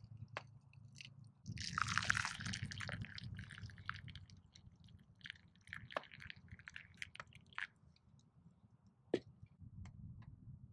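Liquid pouring from a small metal kettle into a wooden cup, loudest for a second or so near the start, then trickling with scattered drips and light clicks. A single sharp tap comes near the end.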